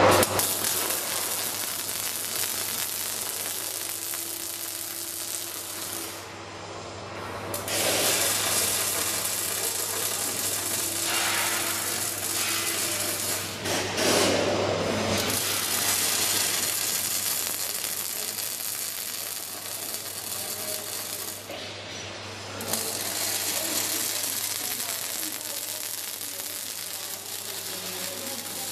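Robotic arc welding: the arc crackles and hisses in long runs of several seconds, broken by three short pauses, over a steady low hum.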